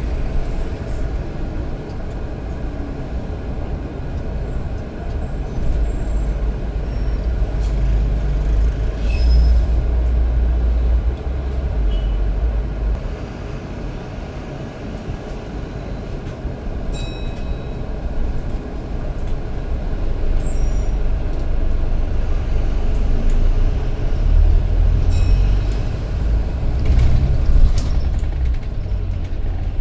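A bus's engine and running gear heard from on board: a steady low rumble that swells twice as the bus pulls away and picks up speed, and eases off in between. A few short high beeps and clicks come through near the middle and again later.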